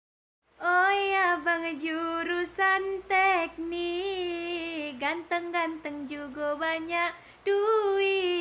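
A woman singing a melody, with held notes and no clear backing accompaniment, starting after a brief silence.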